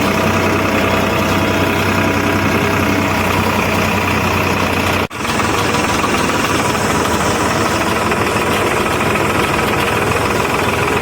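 Tractor diesel engine running steadily under way, with a brief dropout in the sound about five seconds in.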